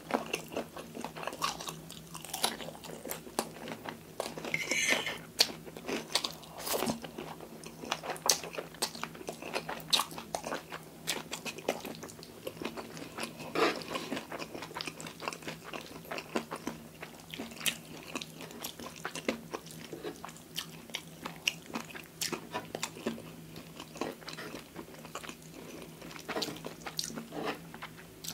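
Close-miked chewing of creamy fettuccine pasta, a steady stream of small wet mouth clicks and smacks. A metal fork twirls pasta against a wooden platter now and then.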